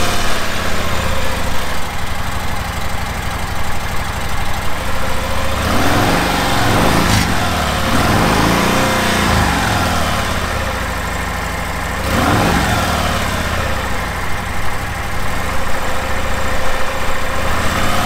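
Harley-Davidson Milwaukee-Eight 107 V-twin running at idle, revved up and back down three times. The owner is trying to bring out a slight pinging rattle from the top of the engine that comes between 1,500 and 2,500 rpm, which he suspects comes from the rockers.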